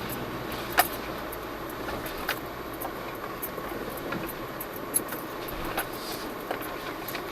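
Jeep Cherokee Trailhawk driving over a rough off-road trail: steady vehicle noise with scattered knocks and rattles, the sharpest just under a second in.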